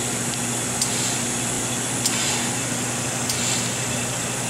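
Steady low hum and hiss from an ATV SRO 702/704 reflow oven running in its cooling step, with the IR lamps off and nitrogen gas flowing through the chamber. A faint tick comes about every second and a quarter.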